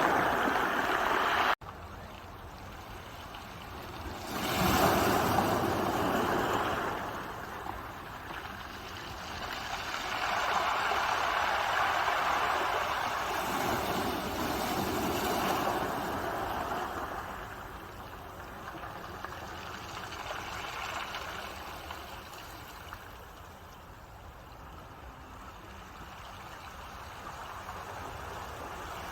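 Ocean waves breaking and washing up the shore, the surf swelling and fading in long surges every several seconds. About a second and a half in, the sound drops suddenly to a lower level, as at an edit cut.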